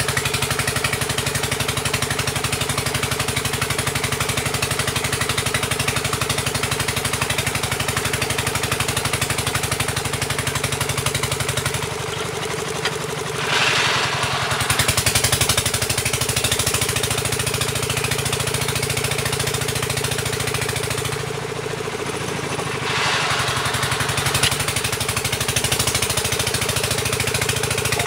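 Engine of a water-well drilling rig running steadily under load, with a knocking rattle from the drilling. Its note drops and the level dips twice, about twelve and twenty-one seconds in, each followed by a short burst of hiss.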